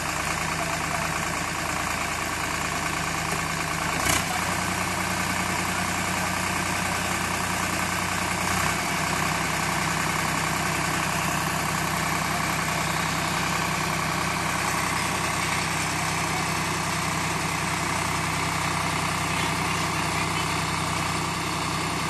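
Swaraj 744 FE tractor's three-cylinder diesel engine running steadily while the attached backhoe arm is worked, with a single sharp knock about four seconds in.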